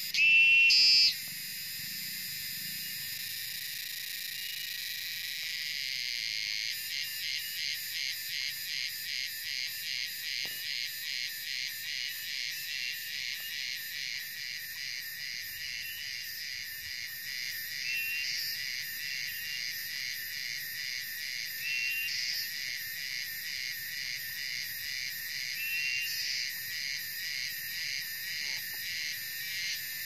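Gareng cicadas calling in a continuous high-pitched buzz. A much louder call lasting about a second comes right at the start. From about seven seconds in, the buzz pulses about twice a second, swelling louder about every four seconds.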